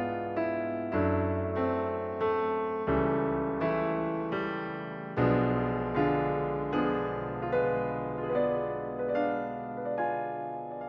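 Background piano music: slow, gentle notes struck one after another, each ringing and fading.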